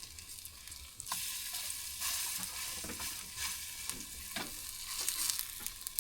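Banana and glutinous-rice batter frying in hot cooking oil: a steady sizzle that grows louder about a second in, with a few light clicks.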